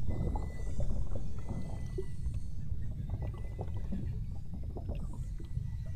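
Steady low rumble of a boat moving through the water. Above it are faint, thin, high beluga whale whistles, some held and some gliding in pitch, with scattered clicks.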